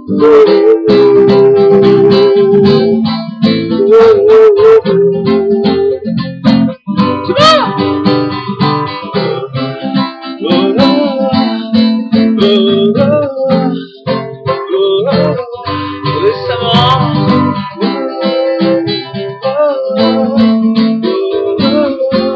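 Music: a strummed acoustic guitar, with a wavering melody line over the chords.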